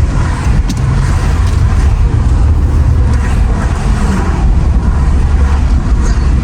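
Steady wind and road rumble of a car at highway speed heard with the windows down, with the engine drone of an Aston Martin Vantage V8 running alongside.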